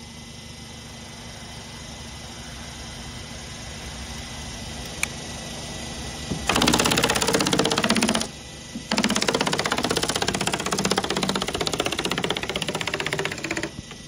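Pneumatic air stapler firing staples in rapid succession through synthetic roof underlayment into the roof decking. The clicks come in two runs, a short one about six and a half seconds in and a longer one of about four and a half seconds after a brief pause. A low steady background noise runs beneath.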